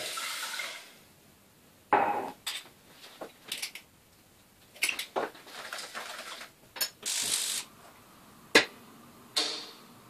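A stainless steel saucepan and its lid being handled on a gas stove: a short pouring hiss at the start, then a run of separate metallic knocks and clinks, the sharpest one about eight and a half seconds in.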